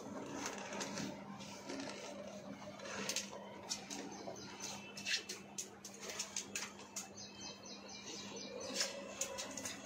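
Cotton towel rustling and rubbing against a wet golden retriever's coat as it is dried, with scattered light clicks throughout.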